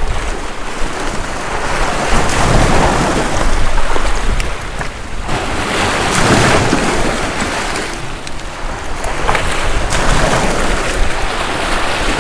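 Surf washing over and through the rock blocks of a jetty. The rushing white water swells and falls back several times, every few seconds.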